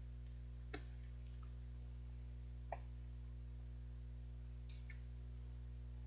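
Steady low hum with a few faint handling sounds: two brief clicks about a second and three seconds in and a soft rustle near the end, as the plastic film is peeled off a strawberry mochi ice.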